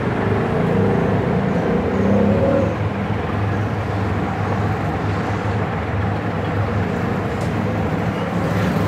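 Steady low background rumble and hum, with a droning tone over it for the first two to three seconds.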